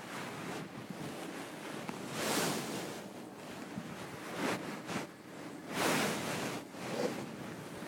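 Handling noise on the camera's microphone: muffled rustling that swells several times, loudest about two and a half and six seconds in.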